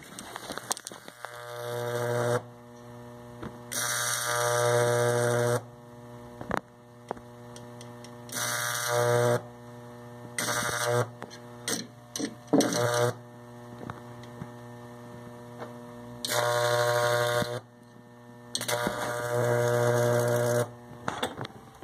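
Microwave oven transformers switched on and off in about seven bursts of a few seconds each, giving a loud mains hum with a high-voltage arc buzzing and hissing across the spark gap. Sharp snapping clicks come between the bursts.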